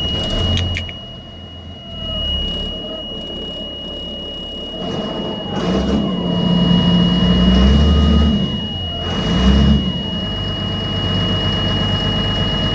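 Turbocharged Caterpillar 3116 diesel of an LMTV military truck running while parked and revved twice, rising and falling each time, to see whether it makes boost. A steady high-pitched warning tone sounds throughout.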